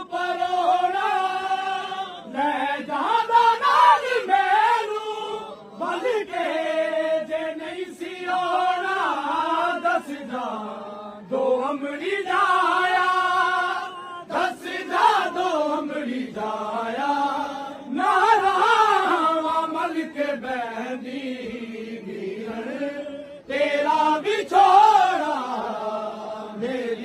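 A group of men chanting a noha, a Muharram lament, in unison. The phrases last about two seconds each, with short breaks between them.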